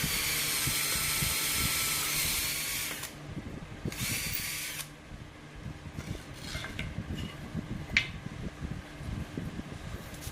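Handheld power tool running for about three seconds, then again for about a second, on a carpentry job. After that come scattered light clicks and knocks.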